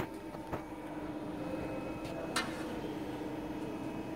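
Steady hum of an ACCURL Euro Pro CNC hydraulic press brake idling, with three sharp metal clicks as the bent steel part and a protractor are handled. The loudest click comes right at the start, another about half a second in, and a ringing one about two and a half seconds in.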